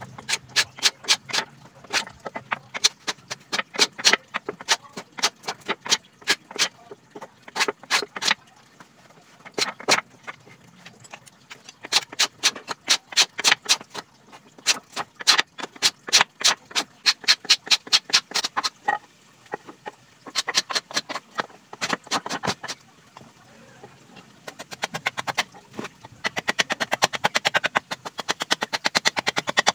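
Hand tool chopping into a teak board: sharp wooden strikes come in runs of several blows a second with short pauses between them. Near the end the blows come in a faster, denser run.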